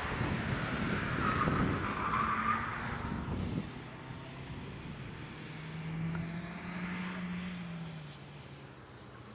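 Ford Focus hatchback driven hard through a corner, its engine running under load and its tyres squealing for a couple of seconds as it passes close. The sound drops suddenly after about three and a half seconds, leaving a quieter engine drone that rises a little in pitch and then fades as the car pulls away.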